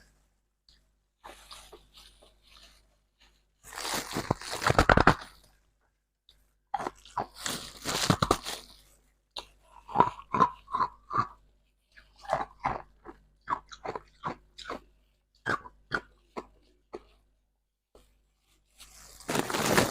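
Ice being bitten and chewed close to the microphone: loud crunching bites at about four seconds, seven to eight seconds and near the end, with a run of short chewing crunches, about two a second, in between.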